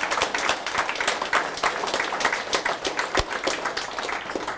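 Audience applauding, with many overlapping hand claps that die away near the end.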